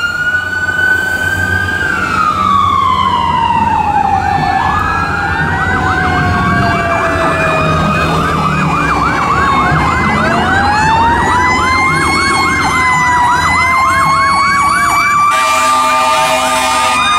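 Sirens of an ambulance and fire trucks passing in convoy: slow rising and falling wails overlap with a fast yelp. A steady horn blast joins near the end.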